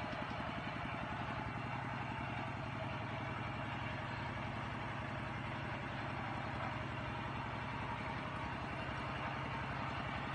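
An engine running steadily with a fast, even low pulse.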